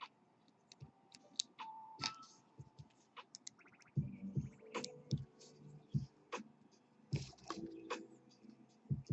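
Small metal clicks, taps and scrapes of tools working on a disassembled pin-tumbler lock, popping up the top of the housing to reach a pin chamber. There is a quick run of ticks about three and a half seconds in, and the handling gets busier from about four seconds on.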